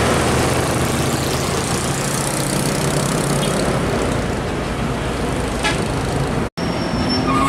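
A heavy tanker truck towing a trailer passes close by and pulls away, its diesel engine droning low and fading over the first few seconds into steady tyre and traffic noise. The sound drops out for a moment near the end.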